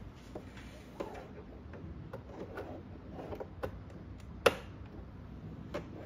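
Braided USB-C cable being handled and plugged into the back of a computer monitor: rustling and scattered small clicks and knocks against the plastic housing, with one sharp click about four and a half seconds in.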